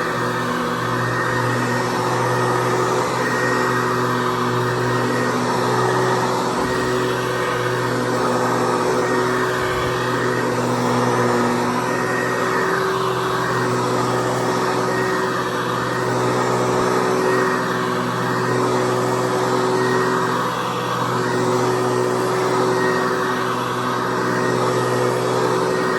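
Hoover Convertible Elite U4153 upright vacuum cleaner running steadily, its motor and fan giving a constant whine over a rushing air noise.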